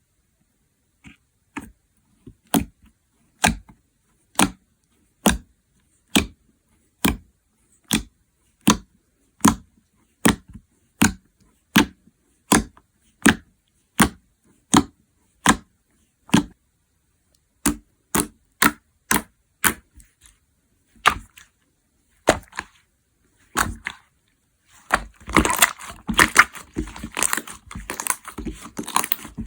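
Slime being pressed and poked, making sharp popping clicks at a steady pace of a little over one a second. The clicks grow irregular, and near the end turn into a dense crackling as the slime is squeezed and worked.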